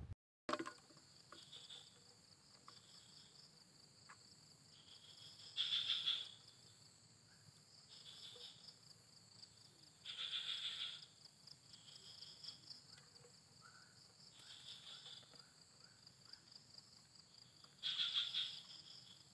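Chorus of calling insects: a steady, high, faint buzzing hum, over which a louder shrill call of about a second sounds three times, with fainter shorter calls between.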